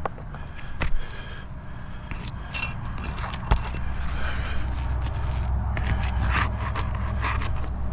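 Roofing tool scraping and prying under hardened, brittle asphalt shingles (Atlas Chalet) in irregular strokes, with a couple of sharp snaps, over a steady low rumble.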